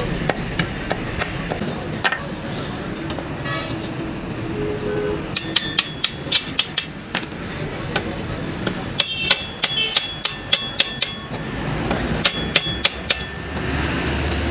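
Blacksmith's hammer striking iron on an anvil, in three quick runs of ringing metallic blows, a few strikes a second, over steady workshop noise.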